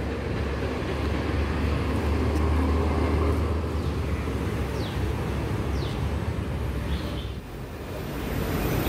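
Outdoor street ambience heard while walking with the camera: a steady low rumble with a faint wash of higher noise, dipping briefly near the end.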